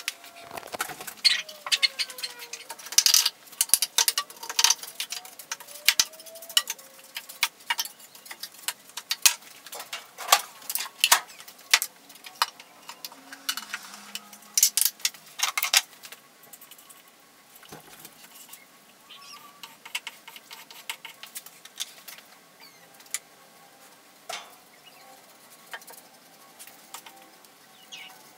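Quick clicks and light knocks of wooden frames and tools being handled on a workbench, dense through the first half and sparser after. A few brief squeaky glides sound in the first several seconds.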